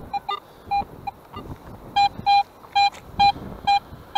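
Metal detector beeping as its coil passes over a metal target in the dug spoil: short, identical electronic tones, scattered at first, then settling into about two a second.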